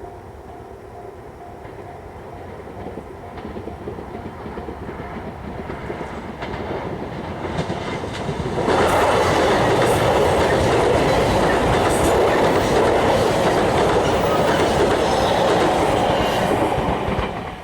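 Train passing through a level crossing. It is heard approaching and growing louder. About eight and a half seconds in it reaches the crossing and passes close by for about eight seconds, a loud steady rumble with wheel clatter, then drops away as it clears near the end. The crossing bell's regular clang is faintly audible at the start.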